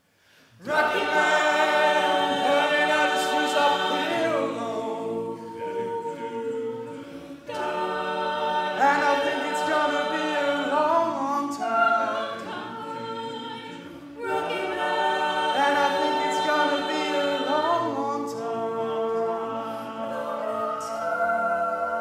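An a cappella vocal group sings sustained, close-harmony chords with no clear lyrics. It comes in just after a moment of silence and moves in phrases that start afresh about every seven seconds.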